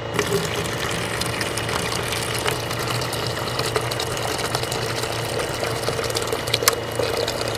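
Small motor running steadily with a gritty rattle and a few sharp clicks.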